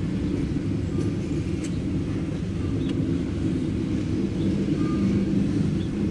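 Loaded coal hopper cars of a CSX freight train rolling past: a steady low rumble of steel wheels on rail.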